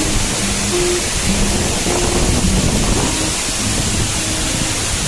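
Steady rush of water pouring over a small waterfall, with background music of short held notes running under it.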